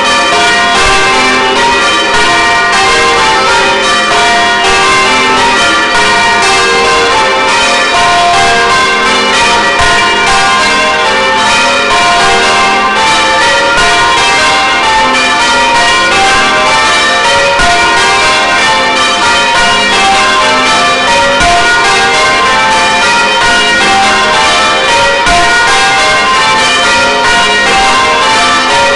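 A ring of church bells, including a 17 cwt tenor, rung full-circle in the English style: a steady, continuous run of loud strikes one after another, heard close up beside the swinging bells.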